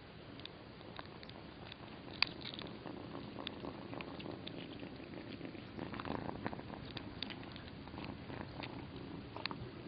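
A kitten crunching dry kibble from a bowl: irregular sharp clicks throughout, the loudest about two seconds in, over a steady low purr.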